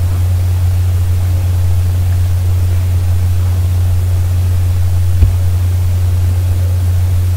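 Steady low hum with a faint hiss behind it, the recording's background noise, with one short sharp click about five seconds in.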